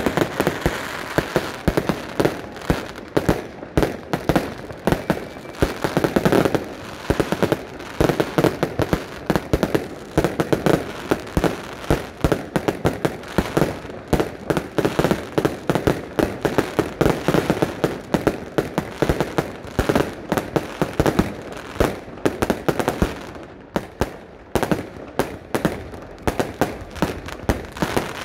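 Aerial fireworks going off in a continuous barrage: many overlapping bangs and crackles, several a second, easing slightly near the end.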